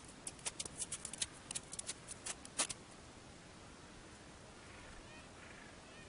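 A rapid run of sharp clicks and taps in the first three seconds, then faint calls of gentoo penguins.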